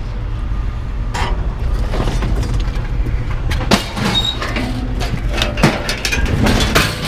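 A vehicle engine rumbling steadily, with repeated knocks and rattles of loose metal over it.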